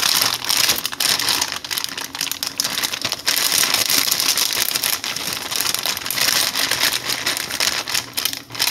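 Plastic resealable bag of frozen strawberries crinkling and rustling as a hand digs in and pulls the fruit out, a dense crackle of small clicks that dies down at the very end.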